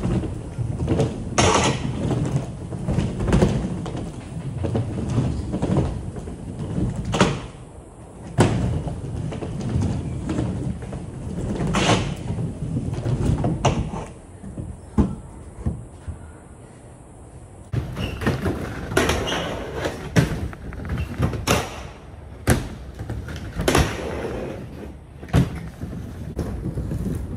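Skateboard wheels rolling through a wooden skate bowl, a low steady rolling noise broken by repeated sharp clacks and knocks of the board on the wooden ramps.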